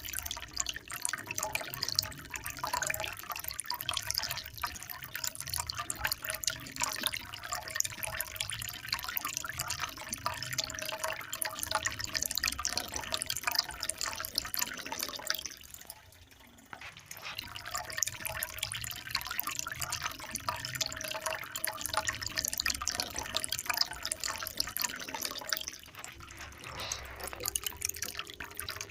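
Water trickling and splashing in a dense, continuous patter of drips, briefly dropping away about sixteen seconds in before picking up again.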